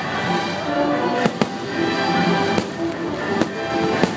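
Aerial firework shells bursting with several sharp bangs over the fireworks show's music.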